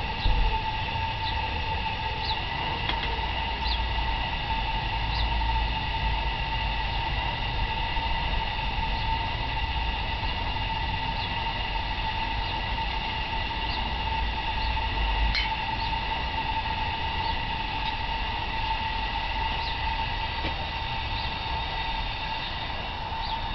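A 5-inch gauge Sweet Pea live-steam locomotive standing, giving a steady whine with several held tones over a low rumble.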